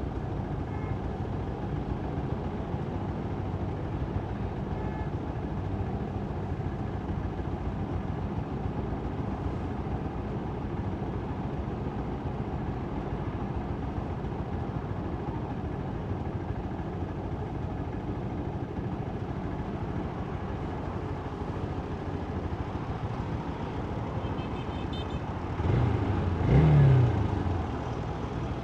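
Steady low rumble of wind and road noise on a microphone from a moving vehicle, recorded in a test of wind-noise reduction. Near the end a louder vehicle sound swells, its engine pitch rising and then falling.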